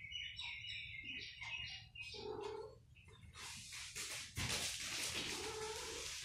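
Mother cat and kittens calling while they play-fight: short high chirps through the first two seconds, a meow about two seconds in, then about three seconds of rough, hiss-like noise.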